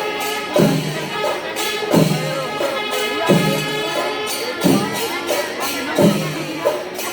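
Traditional Kerala temple music. A heavy drum stroke falls about every second and a third, under a held, steady wind-instrument melody, with quicker high metallic strokes from cymbals.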